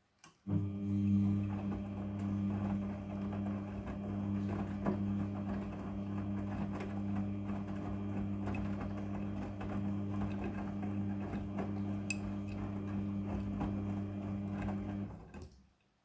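Front-loading washing machine drum turning a load of wet clothes: a steady low motor hum with water and laundry tumbling inside, scattered light knocks throughout. It starts about half a second in and stops about a second before the end.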